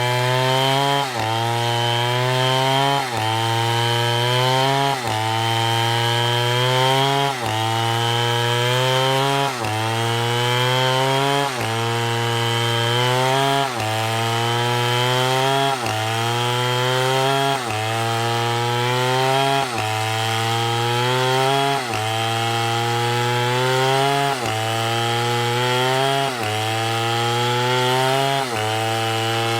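STIHL chainsaw running at high speed. Its engine pitch dips sharply, then climbs back up, in an even cycle about every two seconds, over and over.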